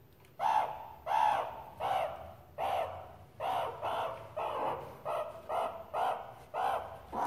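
Meerkat calling over and over while being hand-fed: short, scratchy calls about every half second, coming a little faster after the middle.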